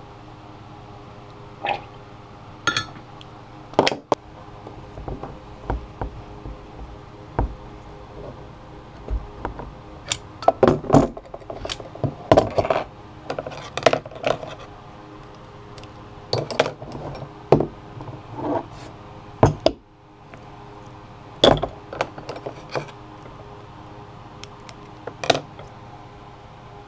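Sharp metallic clinks and knocks of an aluminum soft-plastic bait mold and its bar clamps being handled: the clamps are taken off and the mold halves opened to get at freshly poured baits. The knocks come in scattered clusters, busiest in the middle, over a steady hum.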